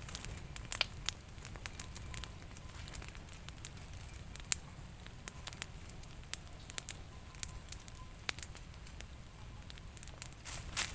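Open wood fire crackling under chickens roasting on bamboo spits, with irregular sharp pops and a louder cluster of crackles near the end.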